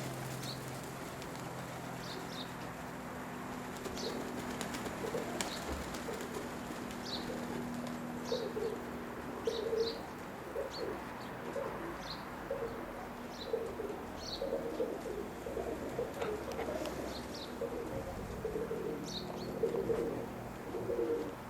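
Roller pigeons cooing in a kit box, with repeated coos building from about a third of the way in, mixed with short high squeaks.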